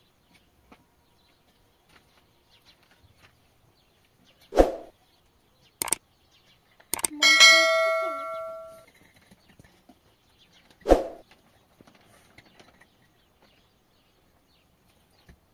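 Mostly quiet, broken by a few separate knocks: two dull thuds about six seconds apart and, near the middle, a single metallic clang that rings on for about a second and a half.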